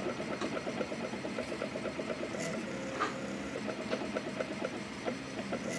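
Small stepper motors of a homemade CNC pen plotter built from DVD/CD drive mechanisms buzzing as they step the pen along, in short runs with brief pauses between strokes.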